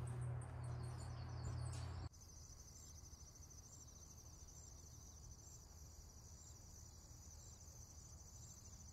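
Faint, steady high-pitched trilling of insects, pulsing evenly. A low steady hum lies under it until a cut about two seconds in.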